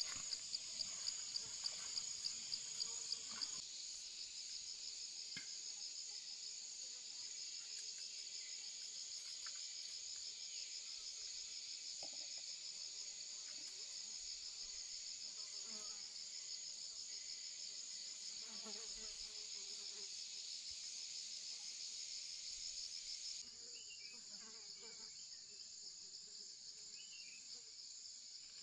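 A steady, high-pitched chorus of insects, with a regular ticking about three times a second for the first few seconds. The chorus drops suddenly in level about three seconds in, and again near the end.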